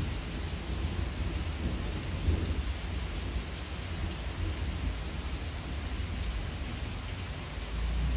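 Steady rain falling, with a low, continuous rumble underneath it.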